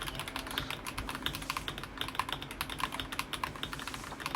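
Typing on the Akko 5075B Plus, a gasket-mounted mechanical keyboard: a steady, fast run of key clicks and clacks.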